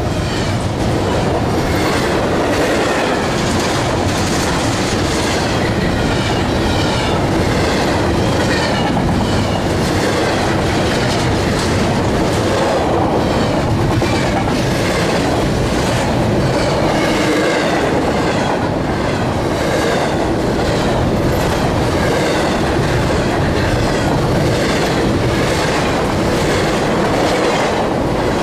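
Double-stack container well cars of a CSX intermodal freight train rolling past close by: a loud, steady rumble of steel wheels on rail with a rhythmic clickety-clack and repeated short wheel squeals.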